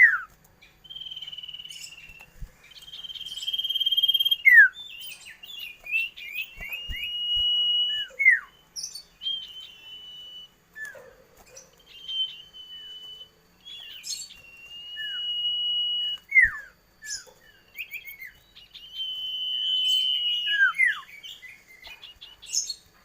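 A songbird singing: long held whistled notes alternating with quick notes that slide downward, repeated over and over.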